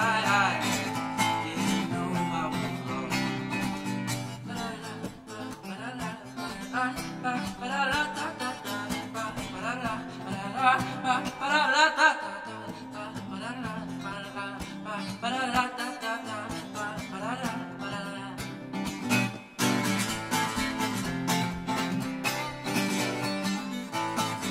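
Acoustic guitar strummed and picked, with a man singing long notes over it until about two-thirds of the way through; after that the guitar plays on alone.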